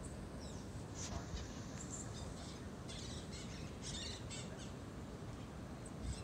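Birds chirping: a run of short, high calls through the middle, over a steady low rumble.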